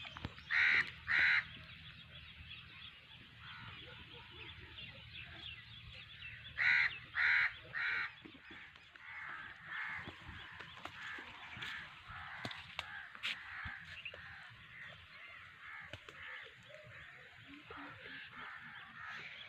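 Harsh bird calls: two loud calls right at the start, three more about seven seconds in, then a run of fainter, quicker calls.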